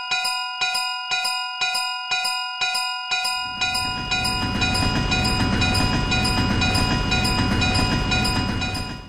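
Railway crossing bell ringing steadily, struck about three times a second. About three and a half seconds in, a passing train's rumble joins it and becomes the loudest sound, and both stop abruptly together.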